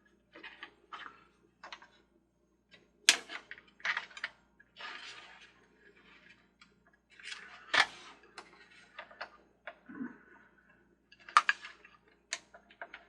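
Irregular clicks, taps and knocks of a toy carousel's top cage and clutch gear being handled and pressed back into their notch.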